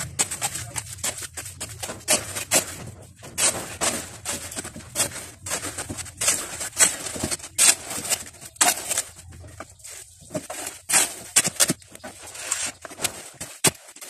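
Steel shovel scraping and crunching through a pile of wet gravel and cement mix on a concrete floor while concrete is mixed by hand: a fast, irregular run of short scrapes.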